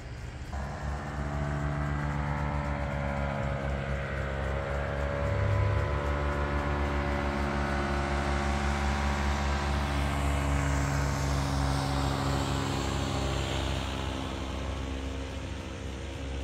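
Powered paraglider (paramotor) engine and propeller droning as it flies past overhead. It rises in loudness, dips slightly in pitch as it passes, then slowly fades.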